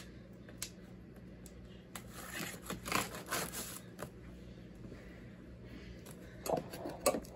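Knife scoring the packing tape on a cardboard box, with the box handled: soft scrapes and rustles, a run of them about two to three and a half seconds in and two more near the end.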